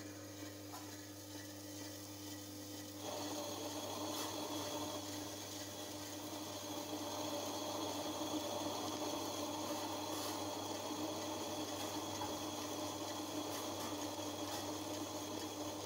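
Tabletop wet grinder running, its stone roller grinding soaked urad dal and sugar into a thick batter in the turning steel drum. A steady motor hum with a gritty grinding noise, which grows louder and coarser about three seconds in.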